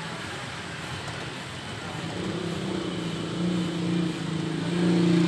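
Double-ended bench grinder with a wire brush wheel running, a steady motor hum that grows stronger and louder from about two seconds in.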